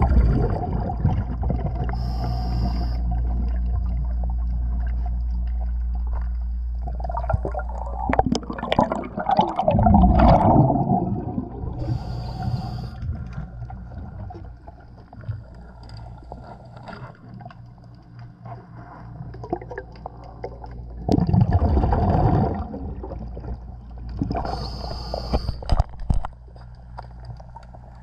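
Underwater sound of a diver breathing through a scuba regulator: a short hiss on each breath in, about every ten seconds, and loud gurgling exhaust bubbles in between. A low steady hum fades out after about seven seconds.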